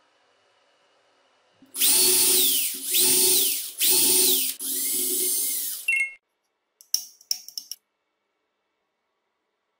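Cordless drill driving a screw into wood in four short runs, the motor speeding up and winding down at each trigger pull. A few quick sharp clicks follow.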